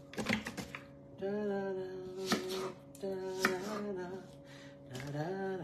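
Cut onion pieces dropped into a plastic food-processor bowl, then a kitchen knife cutting onion on a wooden cutting board with a few sharp knocks. A woman hums a tune in between.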